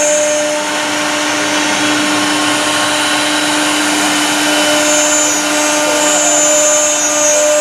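CNC router spindle cutting into wood: a steady whine over a dense cutting hiss that holds even throughout.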